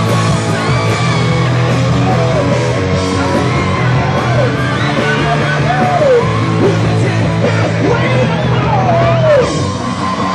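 Live rock band playing loud, with electric guitars and drums and a singer's voice over them.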